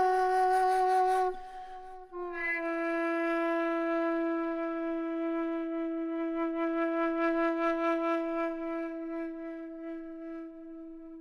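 A flute-like wind instrument plays: a few stepped notes break off just over a second in, then one long low note is held and slowly fades away.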